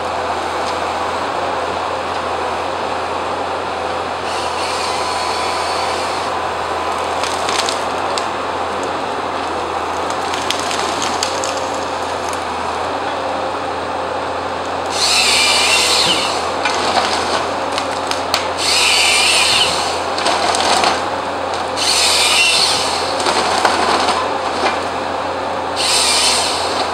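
Logman forestry harvester running steadily under load; from about halfway, the chainsaw in its harvester head cuts through the tree stem again and again, a loud high-pitched whine of about a second each time, bucking the stem into logs.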